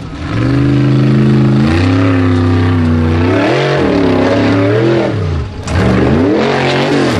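Formula Offroad buggy engine revving hard under load as it climbs a steep dirt bank, its pitch swinging up and down again and again. The revs drop away for a moment about five and a half seconds in, then rise again.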